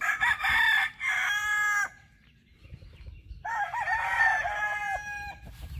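Roosters crowing twice. The first crow lasts about two seconds from the start. A second, lower-pitched crow follows about a second and a half later and runs for about two seconds.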